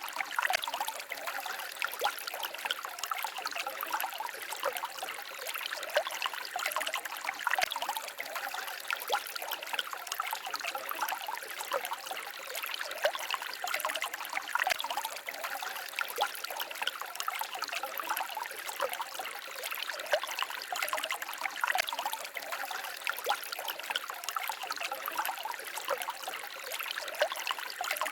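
Small forest stream babbling and trickling steadily over stones, a continuous splashy burble without a deep rumble.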